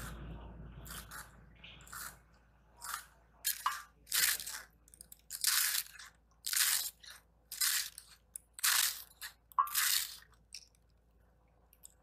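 Fresh cabbage being shredded against a boti, a fixed upright kitchen blade. Each stroke tears through the head with a short crisp crunch, roughly one a second.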